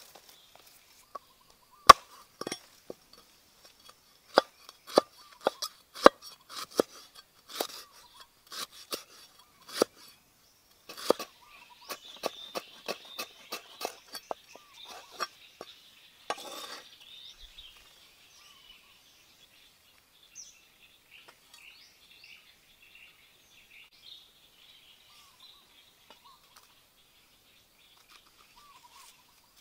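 A knife blade knocking irregularly on a wooden chopping board as lemongrass stalks are sliced, the knocks thinning out after about 15 seconds. In the quieter second half, a few faint bird chirps.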